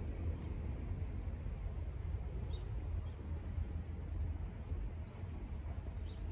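Quiet city street ambience: a steady low rumble, with small birds chirping briefly a few times above it.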